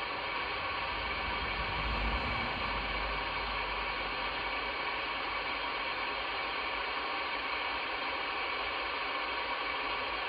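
Steady static hiss from a Midland Alan 9001 CB radio's speaker between transmissions on the 11-metre band, with a brief low rumble about two seconds in.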